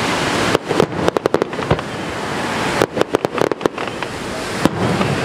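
Aerial fireworks exploding over the lake: a few bangs, then rapid runs of sharp reports about a second in and again about three seconds in, and one more bang near the end, over a steady background hiss.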